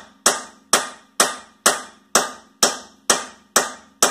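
Sledgehammer striking metal in a steady rhythm, about two blows a second, each with a short ring, hammering at a seized rear wheel hub to knock it loose.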